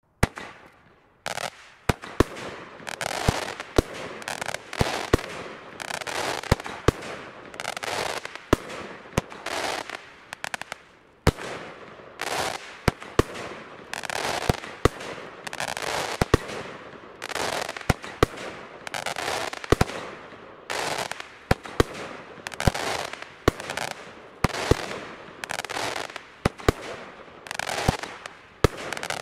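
Blackboxx Plan B 30 mm firework cake firing shot after shot: a sharp bang about once a second, each followed by a dense spell of crackling as the bronze crackling-star flowers break, with golden popping stars filling in below.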